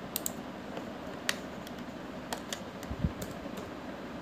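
Computer keyboard keys and mouse buttons clicking a few times at irregular intervals over a steady background hiss, with one low thump about three seconds in.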